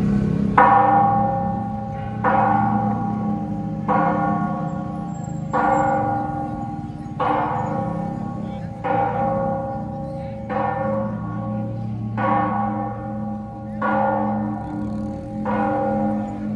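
Large cathedral bell tolling slowly and evenly, about ten strokes a little over a second and a half apart. Each stroke rings on into the next over a steady low hum.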